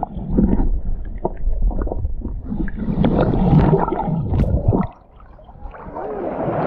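Sea water gurgling and sloshing, with many short bubbly pops. It drops suddenly quieter about five seconds in, then swells back.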